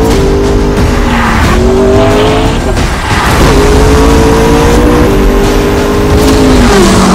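McLaren MP4-12C's twin-turbo V8 breathing through a Fi Exhaust valved catback with catless downpipe, pulling hard under acceleration. The pitch climbs and then drops back with each gear change, about three times.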